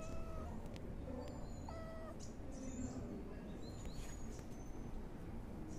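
A kitten mewing briefly twice, once at the start and again about two seconds in, with small birds chirping high in the background over a steady outdoor rumble.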